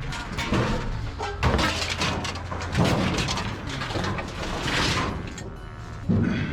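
Scrap metal being handled and thrown, with repeated bangs, clatters and crashes.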